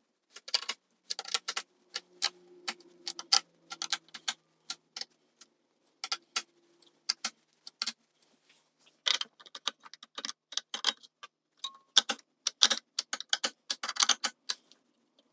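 Rapid, irregular sharp clicks and metallic clinks of knobs being pulled off a 1965 Fender Deluxe Reverb's control panel and its pot and jack nuts being tightened with hand tools.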